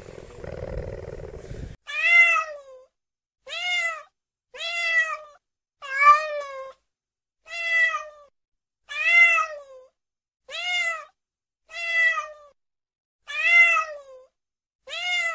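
A jaguar's low, rough growl, cutting off about two seconds in. Then a domestic tabby cat meows again and again, about ten meows roughly a second and a half apart, each rising then falling in pitch.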